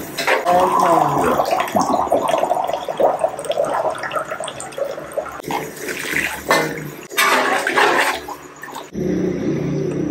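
Water poured from a mug into a hot wok of ground meat and diced potatoes, splashing and gurgling in several loud pours. Near the end it gives way to a steadier low rumble.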